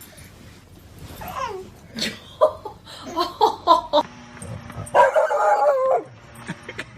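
A dog barking and yipping in short calls, with one longer held call about five seconds in.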